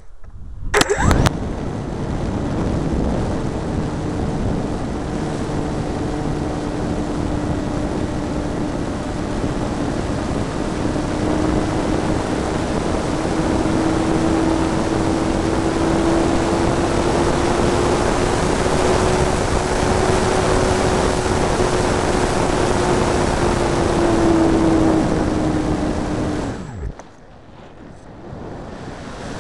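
The brushless electric motor and propeller of an RC hotliner glider, heard from a camera on board, run at full power in a steady whine with heavy airflow rush. The whine rises slightly during the climb. The motor cuts off abruptly near the end, leaving only the rush of air over the glider, and a sharp knock comes about a second in.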